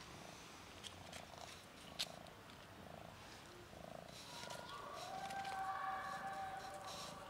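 A stray cat purring while its head is stroked, in soft repeated pulses, with a long drawn-out meow in the second half. A sharp click sounds about two seconds in.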